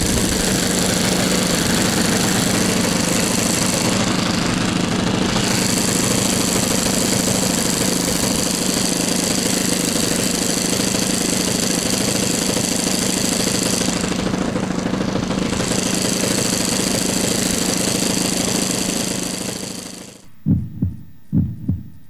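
Engine of a large radio-controlled Nieuport 28 biplane model running steadily at flight power, its tone dulling briefly twice, then fading out about twenty seconds in. A few low thumps, about two a second, follow near the end.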